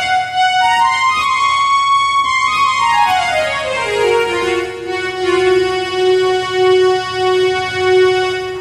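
Casio CT-X870IN portable keyboard playing a melody in one of its string tones: a run of notes climbing to a held high note, then sliding down to a low note that is played again and again.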